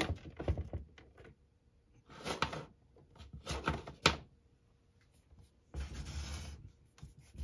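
Rubbing and scraping handling noises in about three short bursts with quiet between, plus a few sharp clicks, as the box fan's power cord is handled and plugged in. No fan motor is running.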